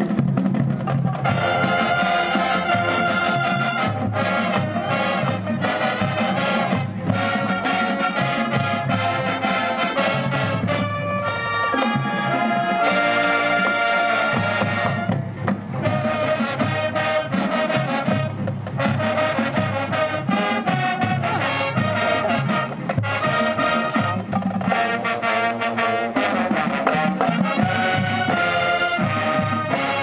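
High school marching band playing a brass-led piece: trumpets and trombones in loud held chords and moving lines, with a brief softer moment about halfway through.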